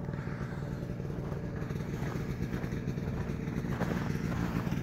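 Snowmobile engine running steadily, getting slightly louder toward the end.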